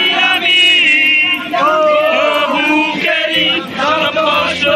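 A group of young men singing loudly together in chorus, a chant-like song shouted out at the top of their voices.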